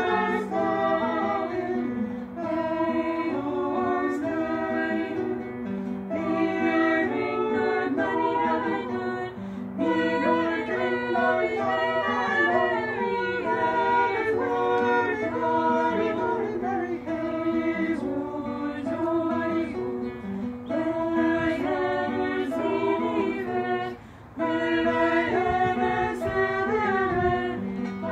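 A small women's choir sings a melody in unison, accompanied by a strummed acoustic guitar. There is a brief break between phrases near the end.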